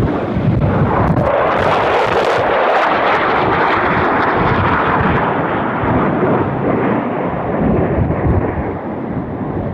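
Fighter jet, an F-22 Raptor, making a low, fast pass: a loud engine roar with a harsh crackle about a second in, its hiss slowly dulling as it moves away.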